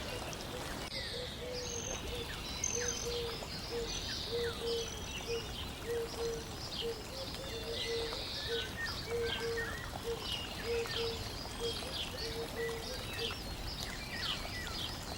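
Several birds chirping and twittering in quick, short calls, over a run of short, low, even notes repeating about once or twice a second.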